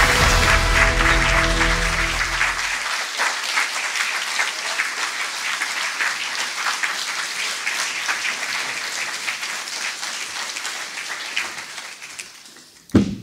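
An audience applauding over walk-on music; the music stops about three seconds in and the clapping carries on alone, slowly fading out. A short thump near the end.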